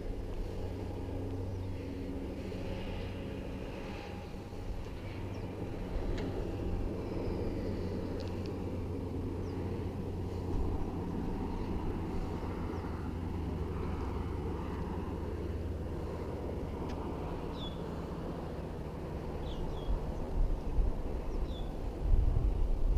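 A car on the move, with a steady low engine and road hum. A few short, high chirps come in the second half, and heavier low rumbles come near the end.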